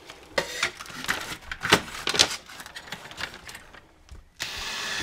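Metal DIN rails and plastic mounting parts clicking and knocking as they are fitted against a wooden panel, then, about four seconds in, a cordless drill starts up and runs steadily, driving in a screw.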